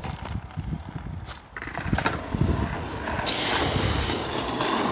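Skateboard wheels rolling over rough concrete, with one sharp clack of the board about two seconds in. A steady hiss joins from about three seconds in.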